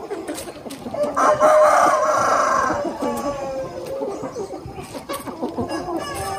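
A flock of chickens clucking as they feed, with a loud crow from a rooster starting about a second in and lasting about a second and a half.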